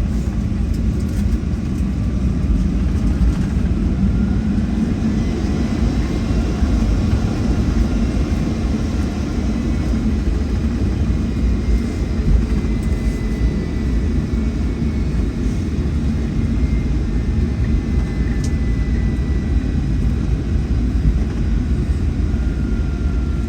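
Cabin noise of a Boeing 757-300 taxiing after landing: the engines running at low power make a steady low rumble, with faint whining tones that drift slowly in pitch.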